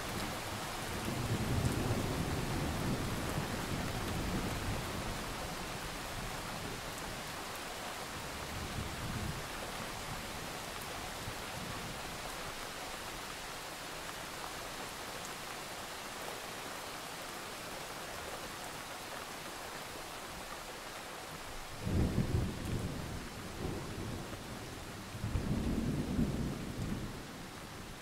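Thunderstorm: steady rain hiss with rumbles of thunder. A long rumble swells in the first few seconds, a faint one follows, and near the end come two louder, sharper cracks of thunder a few seconds apart.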